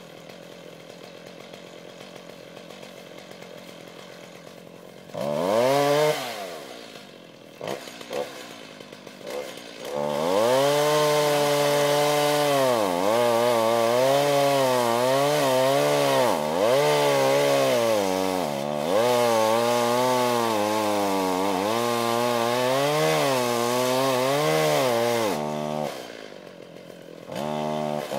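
Two-stroke chainsaw idling quietly, blipped once and then a couple more times, then held at full throttle while cutting into a standing pine trunk, its pitch sagging and recovering again and again as the chain bogs in the wood. Near the end it drops back briefly before revving up again.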